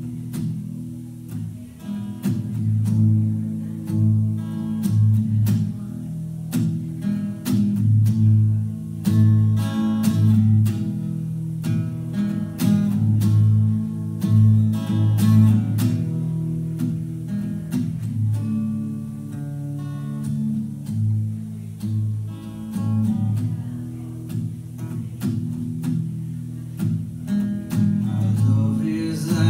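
Solo acoustic guitar played live, with strummed and picked chords.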